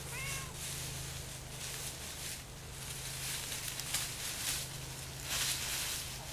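Dry leaves and pine straw rustling in repeated bursts as chickens scratch through the leaf litter, with one short pitched call right at the start.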